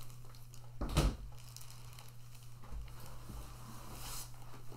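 Handling noise while unpacking items at a table: one sharp thump about a second in, then soft rustling of plastic packaging and rummaging, with a duller thud near the middle.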